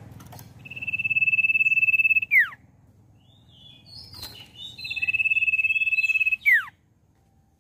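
Common iora singing two long, steady whistles on one pitch, each about a second and a half long and ending in a quick downward slur. Between them come a few short chirps and a brief knock as the bird moves on its perch.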